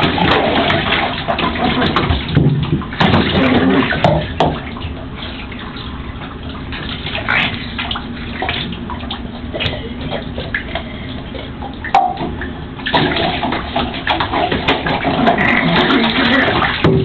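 Water running and splashing in a bathtub, with scattered knocks and scrapes. Louder for the first few seconds, softer in the middle, then stepping up again suddenly about thirteen seconds in.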